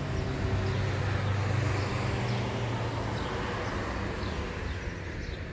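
Steady low hum of a running vehicle engine over a wash of outdoor noise.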